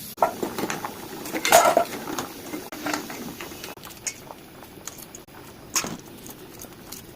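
Kitchen utensils and cookware clinking and knocking together in irregular strikes, loudest about a second and a half in, with one more sharp clink near the end.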